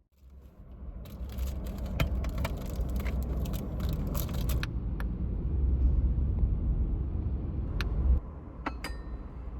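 Small clinks, clicks and scraping of objects being handled, over a low rumble that cuts off suddenly near the end.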